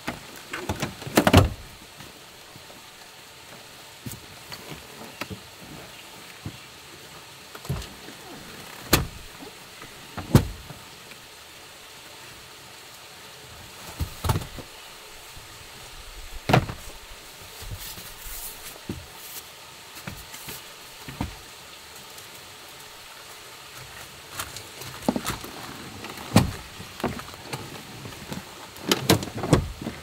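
Scattered clunks, clicks and knocks of gear and doors being handled around a car, a few of them louder, over a steady background hiss.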